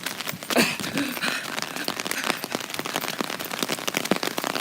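Rain falling, with a dense, irregular patter of drops striking close by.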